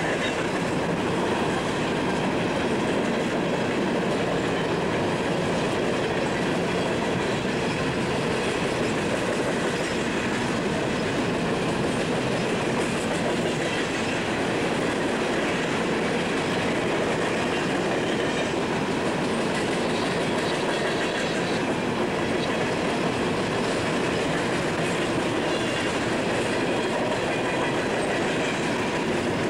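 Freight train cars rolling past: the steady sound of steel wheels on rail from a string of tank cars, gondolas and covered hoppers.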